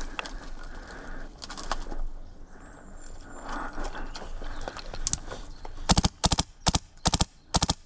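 Footsteps crunching through dry leaves and twigs, then about six seconds in a quick run of about eight sharp shots, many in quick pairs, from an MTW Wolverine HPA airsoft rifle.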